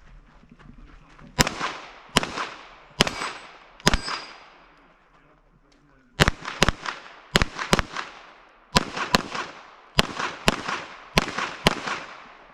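Gunshots from a competition stage in a practical shooting match: four single shots a little under a second apart, a pause of about two seconds, then rapid pairs of shots, each ringing out with a short echo.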